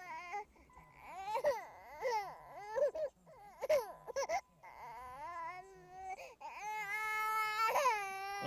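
A 19-week-old baby crying: a string of short, high-pitched wailing cries and sobs, then one long held wail of about a second and a half near the end.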